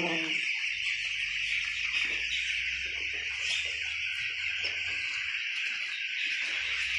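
Dense, steady cheeping of a shed full of ten-day-old broiler chicks, with a low steady hum underneath.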